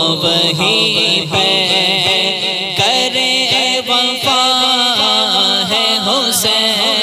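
Devotional vocal music: a manqabat chanted by a male voice with layered backing vocals.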